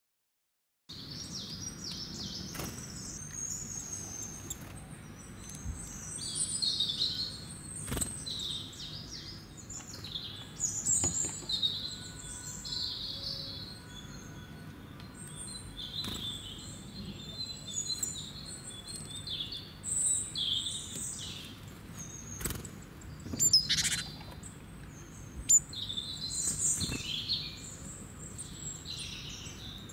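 Small birds chirping and twittering over and over, starting after a brief silence, with scattered sharp clicks and taps from handling a plastic battery holder and its wires.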